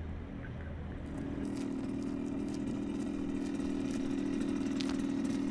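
A vehicle engine idling steadily, coming in about a second in and holding an even, unchanging pitch.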